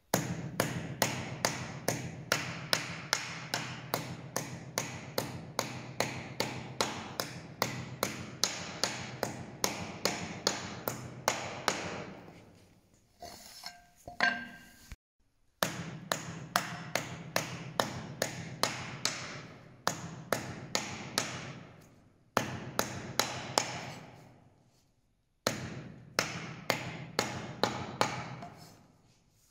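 A heavy cleaver chopping bundles of hemp tow on a wooden stump, cutting them into short fibres: quick, even strokes about three a second, in three runs broken by two short pauses.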